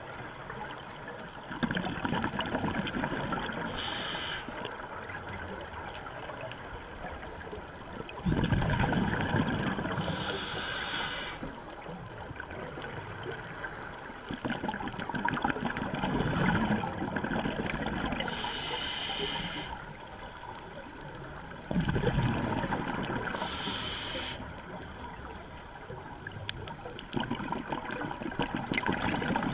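Scuba diver breathing underwater through a regulator: a short hiss on each inhale and a longer, louder gurgling rush of exhaled bubbles, about four breaths in a steady cycle.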